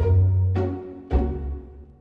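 Background music: two deep, struck notes about a second apart, each fading away.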